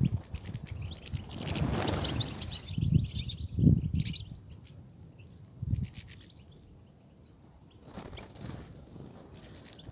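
European goldfinches twittering: scattered high chirps, thickest about two seconds in, with a few dull low thumps in between.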